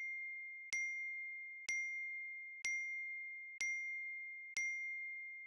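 A high, clear bell-like ding repeated about once a second, each strike ringing on and fading away before the next.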